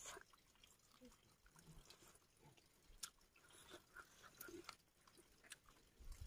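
Faint chewing and eating sounds: scattered soft clicks and mouth smacks of a person eating fish and rice with her hands.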